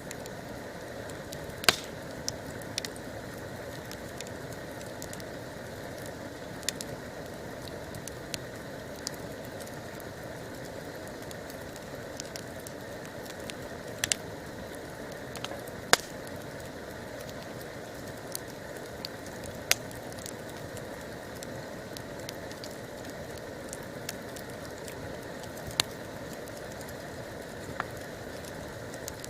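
Wood campfire burning with a steady hiss of flames and irregular sharp crackles and pops from the burning wood.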